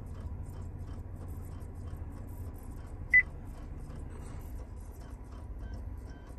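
A single short electronic beep from the 2011 Buick Enclave's touchscreen navigation radio about three seconds in, the touch-confirmation tone as the OK button on its caution screen is pressed. A steady low rumble runs underneath.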